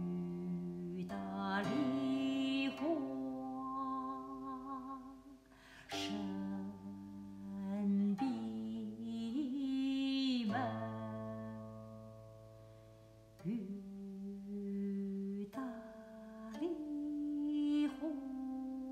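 Guqin playing: plucked notes that ring on and slowly fade, with pitches sliding into place and wavering.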